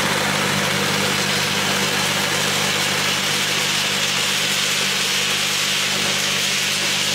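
Roasted peanut skin peeling machine running steadily: an even electric-motor hum under a dense, continuous rattling hiss as peanuts pour through it.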